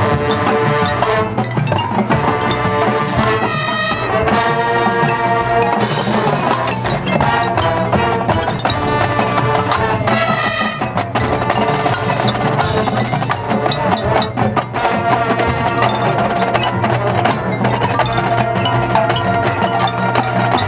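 Live band music: held chords over mallet percussion and drums playing steadily.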